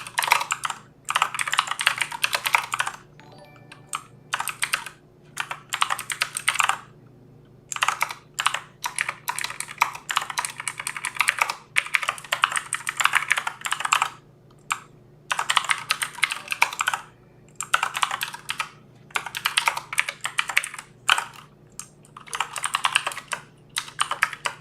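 Rapid typing on a computer keyboard, keys clicking in bursts of a few seconds with short pauses between them.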